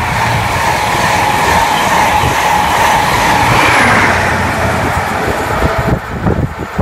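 Passenger train passing close by at speed on the main line: a loud steady rush of wheels on rail with a hum, dropping away about six seconds in, leaving wind buffeting the microphone.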